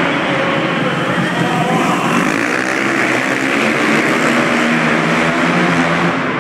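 Flat-track racing motorcycles running together on an indoor track, a dense steady wash of engine noise with several engine notes rising and falling in pitch as they rev.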